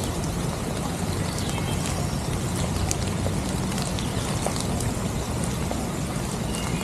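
Steady rain falling, an even hiss with scattered sharp ticks of drops landing close by.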